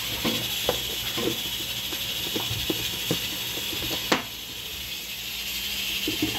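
Steady hiss of steam from cooking on the stove. Light plastic clicks and knocks come from a plastic food tub and its lid being handled, with one sharp click about four seconds in.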